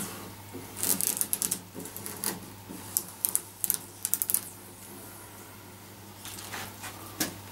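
Craft knife slicing through vinyl decal along a cabinet edge, with the cut-off strip crackling as it is pulled away: scratchy, clicky bursts in several short runs with pauses between.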